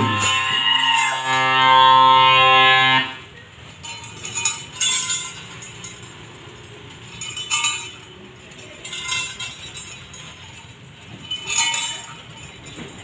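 A loud held note of the ritual music, one steady pitched tone, cuts off abruptly about three seconds in. After it, the dancer's metal ankle bells jingle in short bursts a second or two apart, about five times, as the performer steps.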